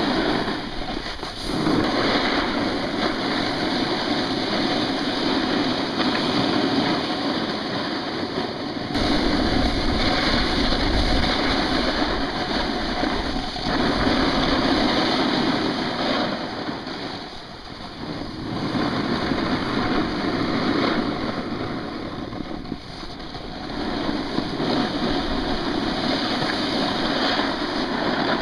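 Snowboard riding down a groomed slope: the board's edges scraping over packed snow and wind rushing over the microphone, swelling and easing every few seconds as the rider switches between heel-side and toe-side turns.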